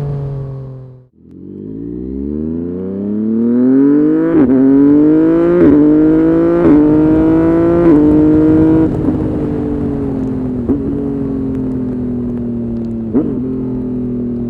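Yamaha MT-09's three-cylinder engine through a Dominator HP1 full exhaust accelerating hard and shifting up four times in quick succession, each shift a brief cut with a sharp crack, as with a quickshifter. It then rolls off the throttle and the note falls slowly, with a few sharp pops from the exhaust.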